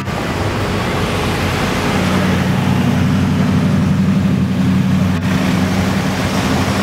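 Morgan Aero 8's BMW V8 exhaust at low revs as the car drives slowly past, a steady low engine note that grows louder about two seconds in.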